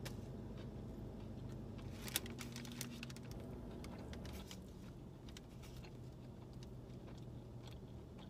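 Small clicks and crinkles of eating: chewing a sub sandwich and picking Sunchips off a paper wrapper. The clicks bunch up about two seconds in, with one sharp click, over a steady low hum.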